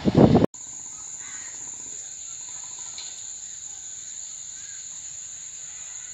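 A passing train's loud rumble cuts off abruptly about half a second in. It gives way to a steady, high-pitched insect chorus over faint outdoor background.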